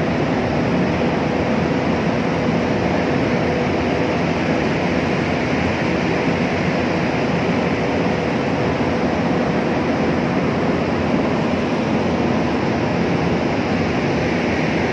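Steady mechanical drone and rushing noise, with a faint hum in it.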